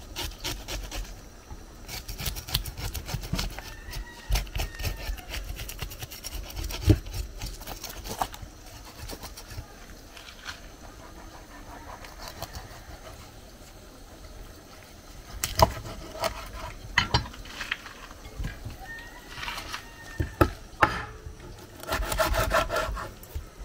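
Kitchen knife scraping scales off a croaker fish on a wooden cutting board: quick, repeated rasping strokes, with a few sharp knocks of the blade on the board in the second half.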